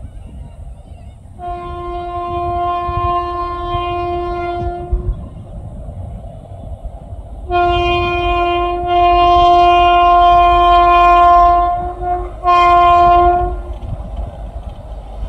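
Indian Railways electric locomotive sounding its horn on one steady note: a blast of a few seconds, a pause, then a longer blast that breaks off briefly and sounds once more, over a low rumble.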